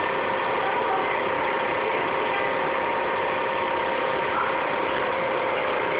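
Steady background hiss with a faint, even hum, like a computer fan or recording noise, holding at one level throughout.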